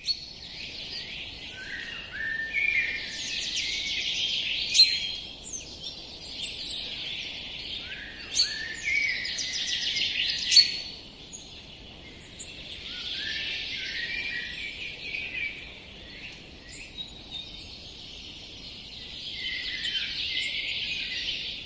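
Birdsong: a songbird singing a song of about three seconds, with falling notes and fast trills, repeated every five or six seconds, with a few sharp high notes between phrases.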